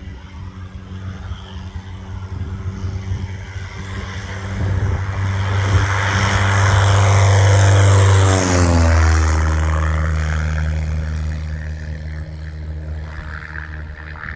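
Van's RV-8 propeller airplane making a low pass: the engine and propeller grow louder as it approaches, the pitch drops sharply as it passes about eight seconds in, and the sound fades as it climbs away.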